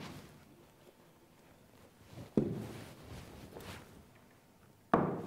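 Two knocks of objects set down on a cloth-covered table, about two and a half seconds apart, with faint handling and shuffling between them.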